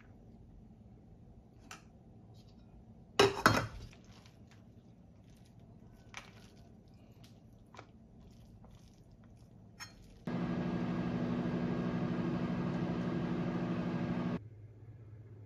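Light clicks and taps of a spoon and plastic food containers, with one loud short clatter of kitchenware about three seconds in. From about ten seconds a Whirlpool microwave oven runs with a steady hum for about four seconds, then stops abruptly.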